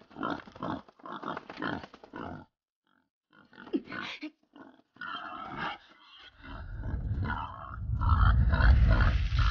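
Animal-like grunts and growls in short separate bursts with brief pauses, then a low rumbling sound building up over the last few seconds.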